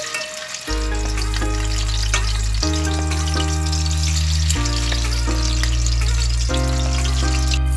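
Chicken breasts shallow-frying in oil in a stainless steel pan, sizzling and crackling. Background music of long held chords that change about every two seconds plays over it.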